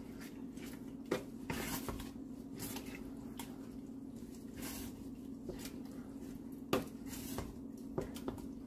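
Wooden spoon stirring mixed vegetables in a thick sauce in a stainless steel saucepan: soft wet squishing with a few sharp knocks of the spoon against the pot, the loudest about seven seconds in. A steady low hum runs underneath.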